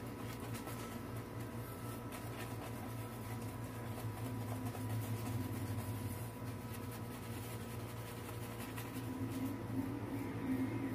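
Shaving brush swirling lather on a wet face, a soft steady rubbing, over a constant low hum.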